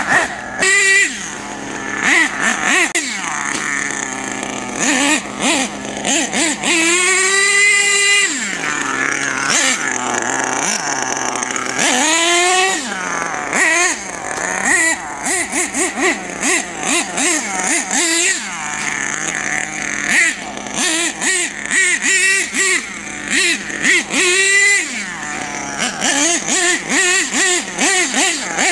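Nitro engine of an HPI Savage X 4.6 RC monster truck, a small two-stroke glow engine, revving hard and easing off with the throttle. It gives many quick high-pitched blips and a few long rising and falling climbs in pitch.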